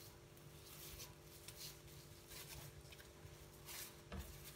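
Faint crinkling and rustling of plastic cling film being peeled by hand off a roll of raw kibbeh, in a few short soft rustles over a low steady hum.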